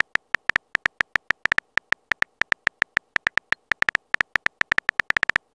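Rapid, uneven run of short, bright keyboard-tap clicks, several a second, with a brief pause about two thirds of the way through: a texting app's typing sound effect as a message is typed out letter by letter.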